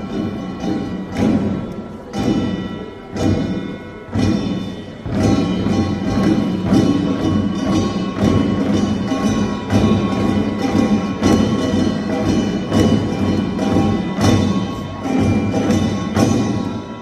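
Korean pungmul percussion ensemble playing: small gongs clanging over drums. Spaced-out strikes for about five seconds, then a fast, dense rhythm.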